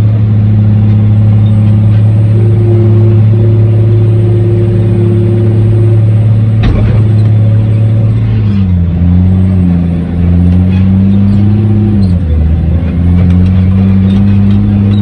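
Dump truck's engine running hard at a steady high speed. Its pitch drops about two-thirds of the way through and shifts again a few seconds later, with a single sharp knock about halfway.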